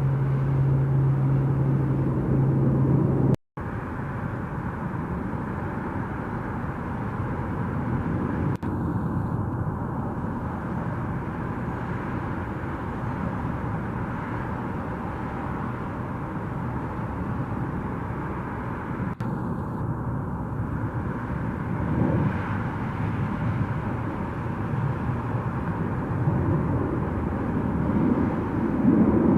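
Airliner engine noise at an airport, a steady roar with a low hum in the first three seconds. The sound drops out briefly a little over three seconds in.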